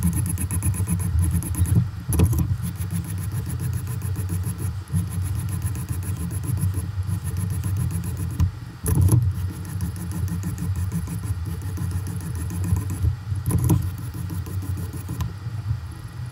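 A 600-grit sharpening stone on a KME guided sharpener rubbing back and forth along the steel edge of a folding knife blade. It makes a continuous rasping scrape with a few brief breaks between passes.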